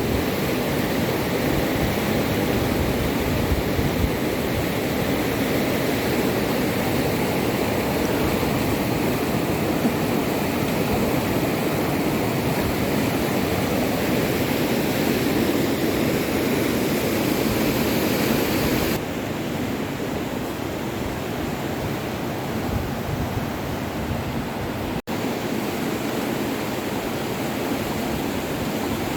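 Steady rush of flowing floodwater. It drops slightly and turns duller about two-thirds of the way through, with a split-second dropout shortly after.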